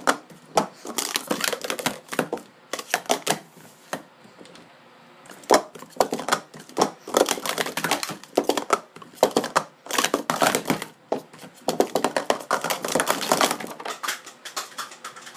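Speed Stacks Pro Series 2 plastic sport-stacking cups being stacked up and down at speed: quick runs of light plastic clacks as the cups are slid together and set down on the mat, in bursts with short pauses between.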